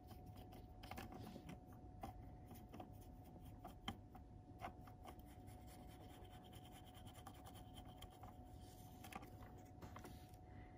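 Faint scratching of a small paintbrush dry-brushing rust colour onto the plastic underframe of an N gauge model brake van, with light ticks and clicks from handling the model, over a faint steady hum.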